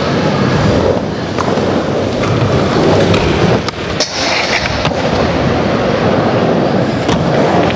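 Skateboard wheels rolling on a concrete floor with a steady rumble, broken by clicks and knocks of the board. About four seconds in the board hits a ledge with a hard smack and scrapes along its edge in a short grind.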